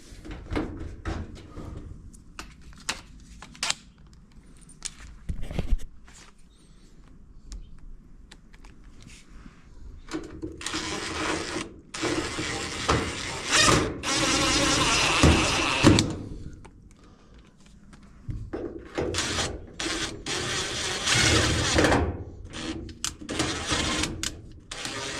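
Knocks, clunks and scraping of the sheet-metal panels and parts of a GE electric dryer being handled and fitted back on during reassembly. Scattered knocks come first, then a longer stretch of loud scraping and rattling in the middle, then more clattering near the end.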